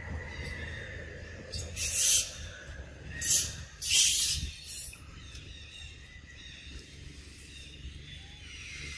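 Macaques giving three harsh, hissing screeches, about two seconds in, just after three seconds and again around four seconds, over a low steady rumble.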